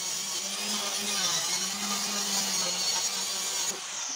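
A motor running steadily, with a strong hiss over a wavering hum, easing off near the end.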